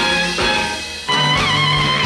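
Jazz band playing a swing number with saxophone and brass; about a second in, a long held note with a slight waver swells in over a low sustained note.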